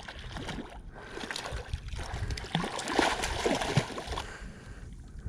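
Water splashing and churning as a hooked channel catfish thrashes at the surface while it is fought in, loudest about three seconds in.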